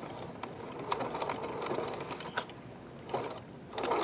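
Sewing machine running, stitching over strands of yarn fed through a yarn couching foot.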